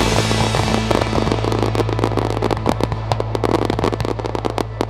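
Fireworks going off in a rapid string of sharp pops and crackles, getting slightly quieter toward the end, over a steady low tone.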